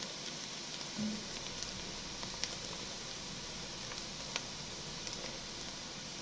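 Chopped seasoning vegetables and garlic sizzling in melted butter in a pot: a steady frying hiss with scattered crackles and a couple of sharper pops.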